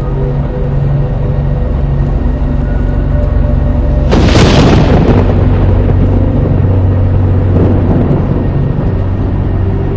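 A thunderclap about four seconds in: a sharp crack that fades into a rumble over a second or two, over a steady low drone.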